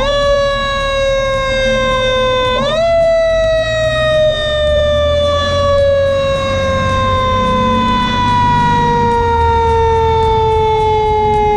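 KME fire engine's siren sounding as the truck pulls out. It winds up sharply right at the start and again about two and a half seconds in, and after each rise slowly slides down in pitch. A low engine rumble runs underneath.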